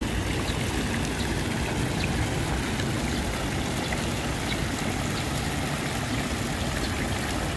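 Steady, even rush of running water splashing into a swimming pool.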